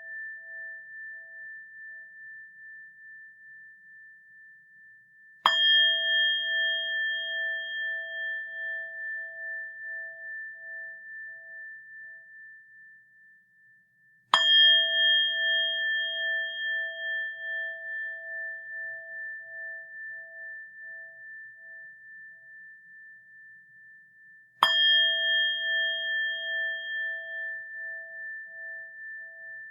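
A rin, the Japanese Buddhist bowl bell, is struck three times, about nine to ten seconds apart. Each strike rings out in a long, slowly fading tone with a gentle pulsing waver.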